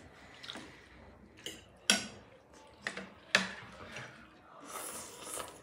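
Eating sounds at a table: metal forks clicking against ceramic plates a few times, two clicks sharper than the rest, and a short slurp of noodles near the end.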